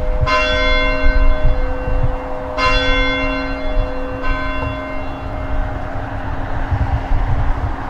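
Church steeple bell tolling: three strokes in the first half, each ringing on and fading slowly, with a low hum lingering between and after them.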